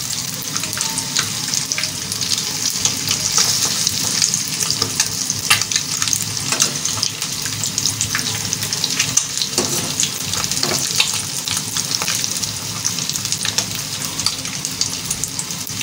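Batter-coated boiled eggs frying in hot oil in a nonstick wok: steady sizzling and crackling, with a slotted spatula stirring and turning them.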